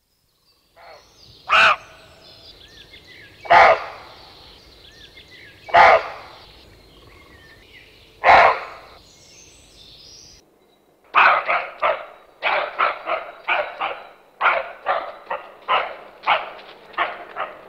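A dog barking. First come four single barks about two seconds apart, with birds singing faintly behind them. After a short break a fast run of barks follows, two or three a second.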